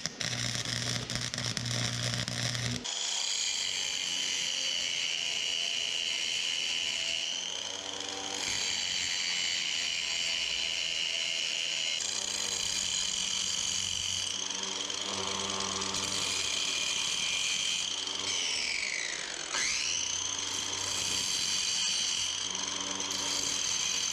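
Angle grinder grinding welds on a bent steel-rod frame, a steady high whine; about three-quarters of the way through it winds down and spins back up to speed. It is preceded by a few seconds of welding arc buzz.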